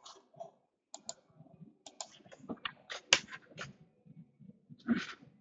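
Irregular light clicks and taps from rigid plastic trading-card holders being handled, with one sharper tap about three seconds in and a short rustle near the end.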